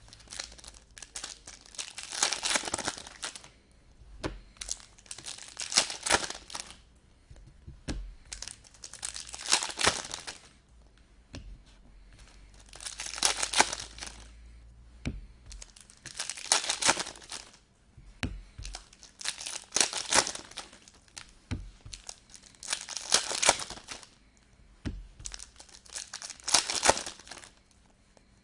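Foil trading-card pack wrappers being torn open and crinkled by hand. There are about eight bursts of tearing and crinkling, one every three to four seconds, as the packs are opened one after another.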